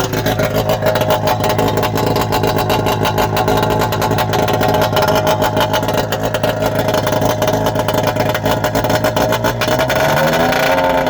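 2000 Arctic Cat ZL440 snowmobile's two-stroke twin engine running steadily after its crankshaft rebuild, then revving up about ten seconds in, its pitch rising.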